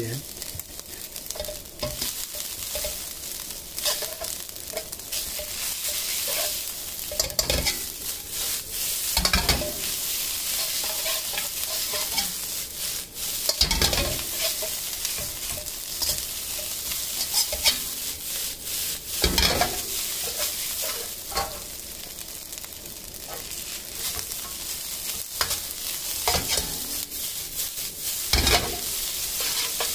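Fried rice sizzling in a hot iron wok while a metal spatula stirs and tosses it. There is a steady frying hiss, broken by scattered louder scrapes of the spatula against the pan.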